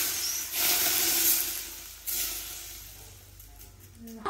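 Smoking-hot oil from a small iron pan poured into a large pot of vegetables as a tempering, hissing and sizzling loudly as it hits the food. The hiss surges again about half a second and two seconds in, then dies down toward the end.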